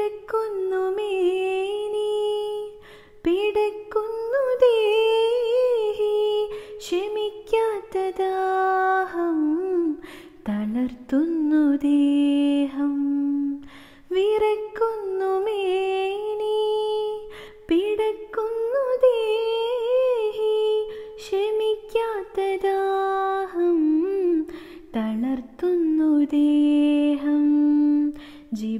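A woman singing a Mappila song unaccompanied, with no instruments: long held notes broken by ornamented turns in pitch. The melodic line heard in the first half repeats from about halfway through.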